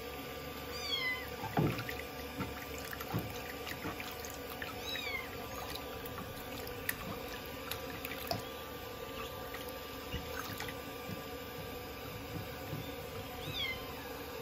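A kitten meowing three times, short high calls that fall in pitch, about a second in, around five seconds in and near the end. Under them, water runs steadily into the basin and splashes as the kitten is washed.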